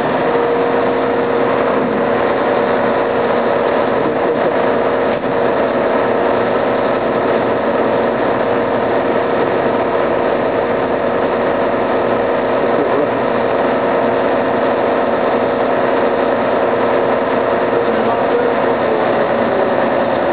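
Fire engine's diesel engine idling steadily inside the apparatus bay, a constant loud hum with a steady tone.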